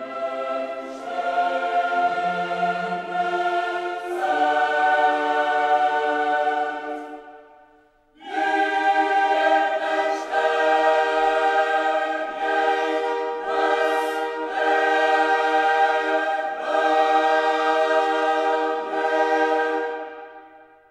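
Background music: a choir singing long held chords that change every few seconds, with a brief break about eight seconds in.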